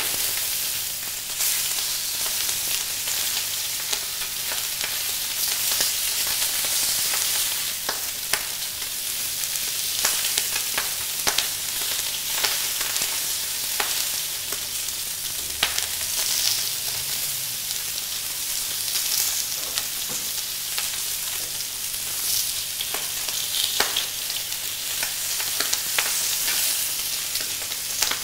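Lightly oiled salmon steaks sizzling on a hot ribbed grill plate, a steady hiss as they sear grill marks. Occasional brief clicks and scrapes come from the metal spatula and the steaks being moved on the grill.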